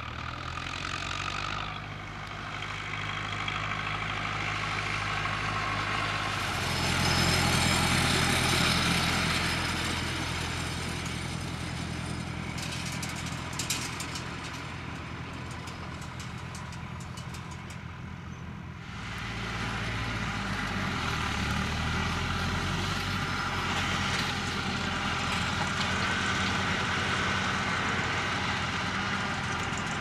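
Massey Ferguson tractors' diesel engines running as they work a hay field, the engine note changing several times and loudest about a quarter of the way in. A run of rapid clicking about halfway through.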